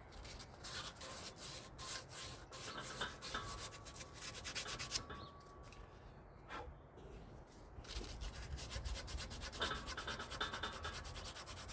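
Abrasive hand-worked strokes of sanding or filing on metal, cleaning up the U-joint cup bores in a yoke. The strokes pause briefly twice near the middle, then come faster toward the end.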